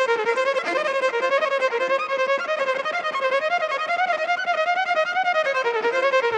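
Solo pop-stage violin track playing a winding melody of quick, closely spaced notes.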